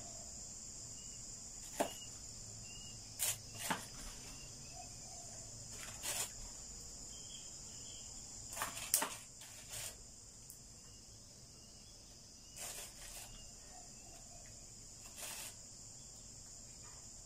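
Pot of chicken feet in turmeric broth heating on the stove, with irregular sharp pops every second or two over a steady high-pitched drone.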